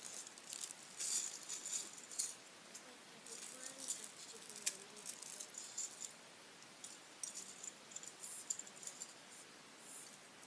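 Loose Lego pieces rattling and clicking together as hands sort and pick through them, in quick irregular runs of small clicks.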